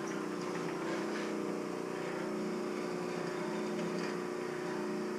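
Craftsman bandsaw converted for metal cutting, running at its slow cutting speed, driven by a 1/3 horsepower electric motor through a gear reduction box and V-belt pulleys: a steady mechanical hum.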